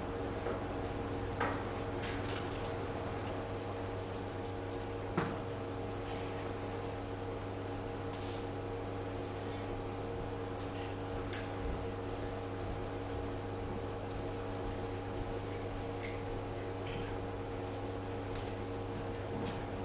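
Steady electrical hum with background hiss, and a couple of faint clicks early on.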